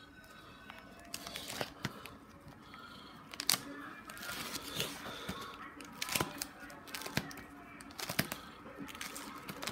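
Handling of a DVD/CD wallet: plastic disc sleeves crinkling, with sharp, irregular clicks as the pages are turned.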